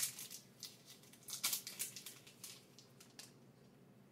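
Foil wrapper of a football trading-card pack crinkling and tearing in the hands, in a series of short rustles that stop about three seconds in.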